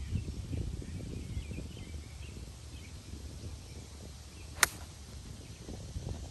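A single sharp crack of a golf club striking a ball about four and a half seconds in, over low wind rumble on the microphone and faint bird chirps.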